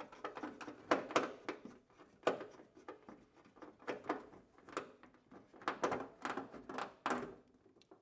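The plastic pipe bend on a HygroMatik FlexLine electrode steam humidifier being unscrewed by hand: a series of irregular clicks, knocks and rubbing of plastic fittings.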